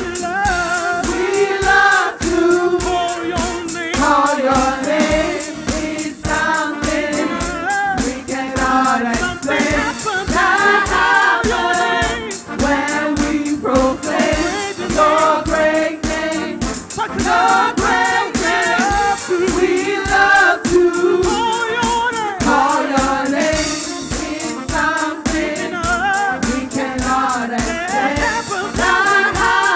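Gospel worship music: several voices singing together as a choir over a band with a steady beat.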